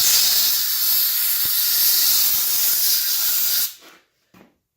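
A loud, steady hiss of escaping air or spray that cuts off after nearly four seconds.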